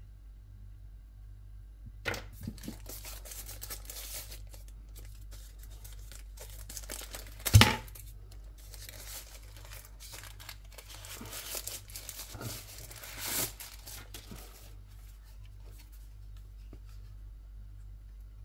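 Drone packaging being torn open and handled: tearing and crinkling of paper and plastic, starting about two seconds in, with a sharp snap about halfway through as the loudest sound and a smaller one later.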